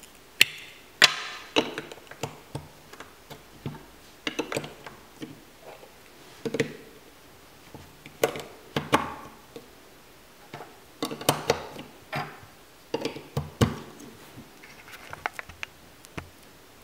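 LEGO Duplo plastic bricks being pressed together and set down on a tabletop: scattered sharp clicks and clacks as a tower of bricks is stacked.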